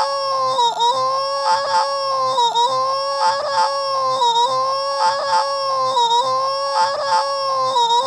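A cartoon woman's high, held wailing cry, wavering slightly in pitch and breaking briefly about once a second, repeating over and over in an even loop.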